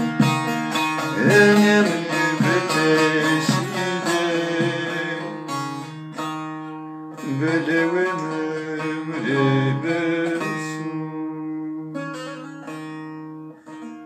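Background folk music: a plucked string instrument over a steady drone, with a gliding melody line, fading out over the last few seconds.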